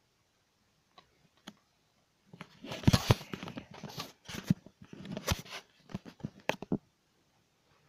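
Handling noise from a handheld camera: after a couple of faint clicks, a dense run of irregular scraping, crackling and knocks against the microphone as the camera is grabbed and swung about.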